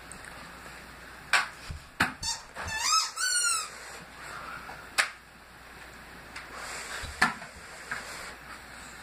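A dog whines in a quick run of high, rising squeaks, the last one longest, about two to three and a half seconds in. A few sharp knocks fall before and after.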